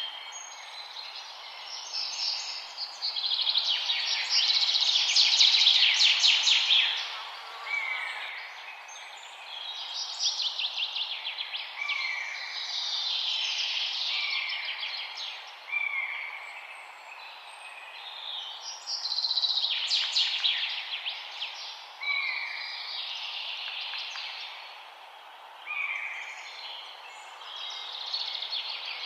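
Several songbirds singing at once in forest ambience: fast trills and chirps overlapping, with a short falling whistled note that comes back every few seconds, over a steady faint hiss of background noise.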